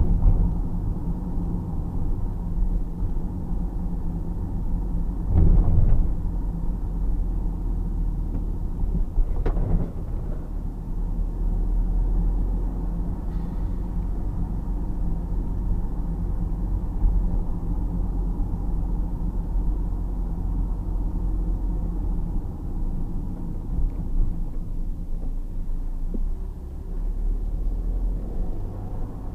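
Steady low engine and road rumble inside a motorhome's cab while it drives slowly through town, with two short knocks about five and nine seconds in.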